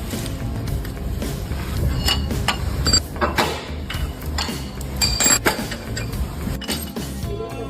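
Metal clinks and knocks of hand tools against engine parts during teardown of a 5.7 HEMI V8, a dozen or so separate strikes, over background music.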